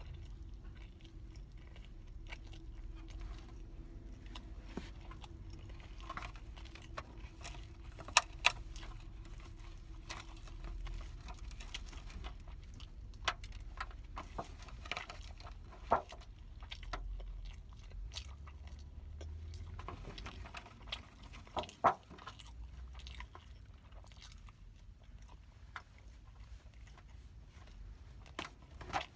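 Close-miked eating sounds: a person chewing soft bread, with wet mouth noises and scattered sharp clicks and smacks, the loudest about three-quarters of the way through. A low steady rumble runs underneath.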